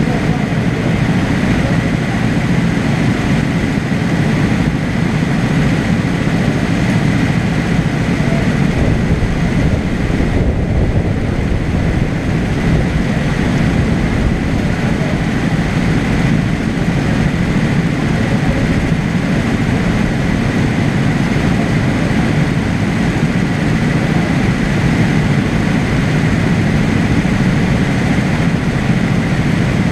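Go-kart engines idling steadily in the pit lane, a low, even running sound with no revving.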